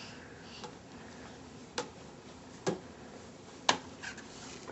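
Three short, sharp taps about a second apart, with a couple of fainter ticks between them.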